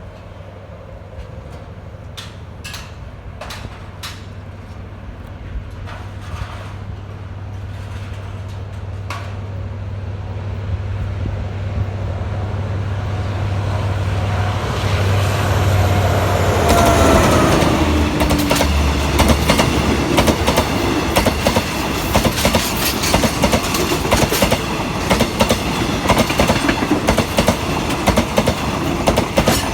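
Alsthom diesel-electric locomotive approaching and passing, its engine drone growing louder and dropping in pitch as it goes by about halfway through, then the carriages' wheels clicking quickly over the rail joints.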